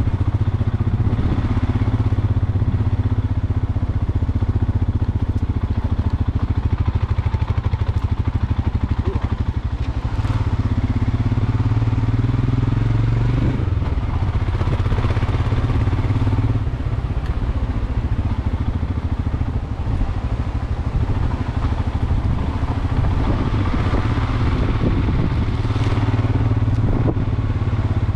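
Motorcycle engine running steadily while riding on a loose gravel road, with clatter from the gravel and tyres under the engine note. The engine note shifts a few times.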